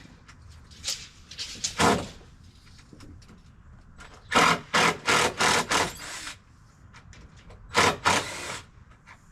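Power driver run in short trigger bursts, backing screws out of deck framing lumber: once about two seconds in, a quick run of about six bursts from about four to six seconds in, and two more near the end.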